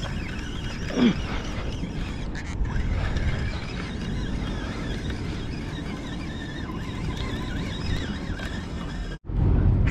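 A spinning fishing reel being cranked steadily as line is wound in against a heavy snag, under a steady low rumble.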